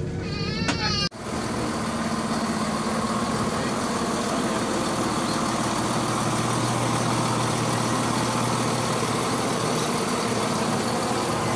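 A diesel passenger train idling at the platform: a steady low engine hum that runs on evenly. About a second in it takes over abruptly, after a brief high wavering squeal.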